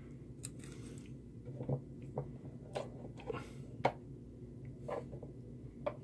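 Scattered small clicks and taps, about eight in six seconds, from hands handling thin wires and a soldering iron inside a plastic filament-dryer housing, over a steady low hum.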